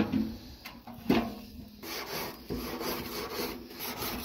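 Two sharp knocks, then from about two seconds in a run of rasping, scraping strokes.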